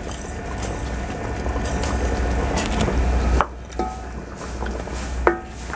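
A ladle stirring a pot of simmering chicken curry, scraping and clicking against the aluminium pot as chopped coriander is mixed in, over a low rumble. The stirring noise is steady for about three and a half seconds, then eases off.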